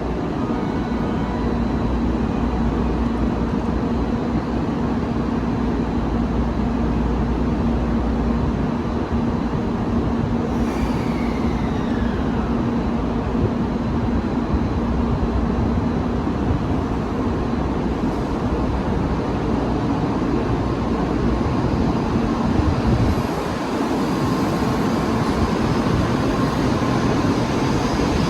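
Train running along the station tracks, a steady rumble with a pitched whine that falls about ten seconds in.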